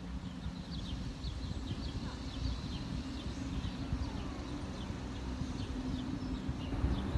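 Outdoor background: a steady low rumble with a faint hum in it, while small birds chirp over it in short, high, downward notes several times a second.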